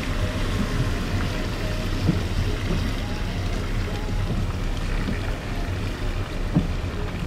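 Heavy rain falling steadily, an even rushing noise with a low rumble underneath.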